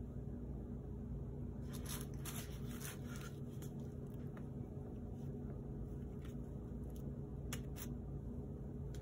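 Light rustles and clicks of things being handled, bunched about two seconds in and then a few single ones, over a steady low hum.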